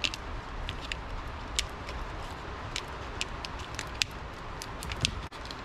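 Irregular small clicks and crackles of old corrugated plastic split loom being worked by hand onto a wiring harness, over a steady background hiss.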